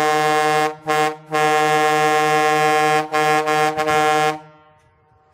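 Twin truck air horns, salvaged from an old Western Star triaxle, sounding loud long blasts on one steady pitch. The blast breaks off briefly twice about a second in, then stutters in a few short gaps near three to four seconds and cuts off about four and a half seconds in.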